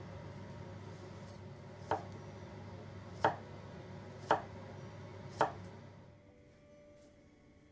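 Chef's knife slicing a cucumber on a bamboo cutting board: four crisp knife strokes knocking on the board, about a second apart.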